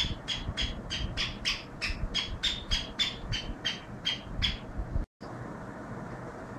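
Caged black francolin giving a fast run of short, sharp squawking calls, about four a second, which stop about two-thirds of the way through; after that only a steady low background noise remains.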